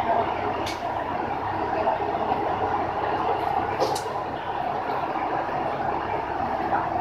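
Kanto Railway diesel railcar standing at the platform with its engine idling, a steady hum and rumble. Two short sharp ticks come about a second in and again near the four-second mark.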